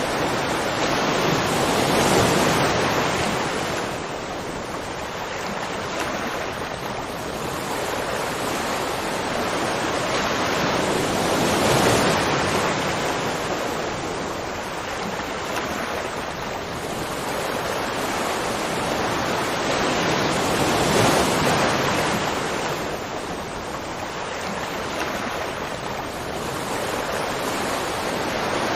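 Waterfall: a steady rush of falling water that swells louder and eases off about every nine to ten seconds.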